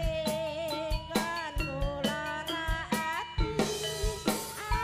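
Music with drums, played loud over the sound system during a sound check: sharp drum strokes under a lead melody that bends and wavers in pitch.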